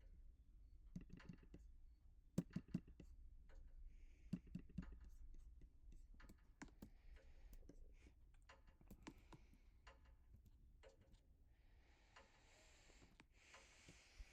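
Harbor Breeze Exceeder ceiling fans running faintly on medium speed: a low hum and a soft hiss of moving air, with scattered light clicks throughout.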